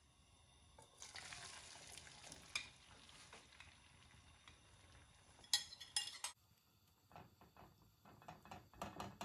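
Beaten egg and vegetable mixture poured into hot oil in a nonstick frying pan, sizzling, with a few sharp knocks about five and a half seconds in. After that, a metal spoon scrapes and taps in the pan as it spreads the mixture.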